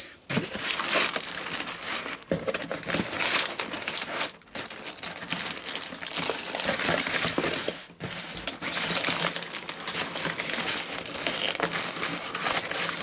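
Packaging being handled and unwrapped: crinkling and rustling, with short breaks about four and eight seconds in.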